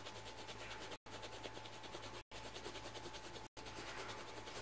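Faint hiss with soft, quick back-and-forth rubbing of a pen colouring paper. The sound is cut by brief dead-silent gaps about every second and a quarter.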